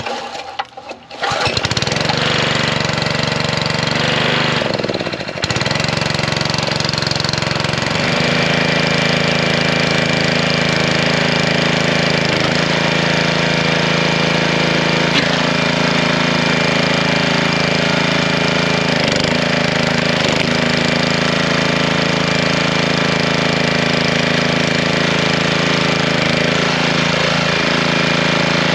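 A Honda small engine on a log splitter starting from cold on choke about a second in. It runs unevenly for several seconds, then settles into a steady run.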